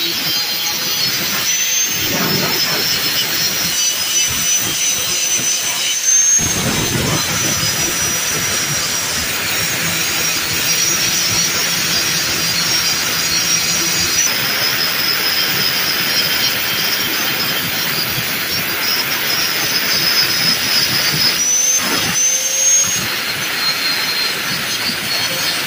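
Electric angle grinder with a thin disc grinding a welded joint on square hollow steel tubing smooth, a steady high whine over a grinding hiss. The whine rises and falls slightly in pitch a couple of times.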